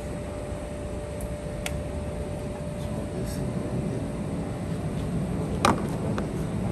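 Steady low background hum with a few light clicks, and one sharp metallic clink about two-thirds of the way through, from hand tools working on the car during radiator removal.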